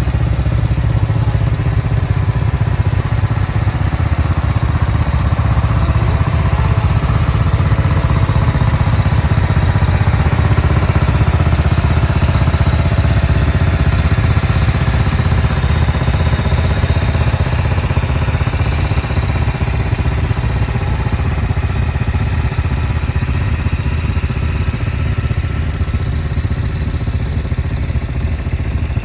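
Cub Cadet HDS 2145 riding lawn tractor's engine running steadily as the tractor drives along, a continuous low drone that eases slightly near the end.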